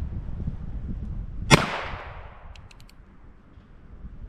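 A single shot from a Colt single-action Frontier revolver, a sharp crack about a second and a half in with an echoing tail that fades over about half a second. Wind rumbles on the microphone before the shot.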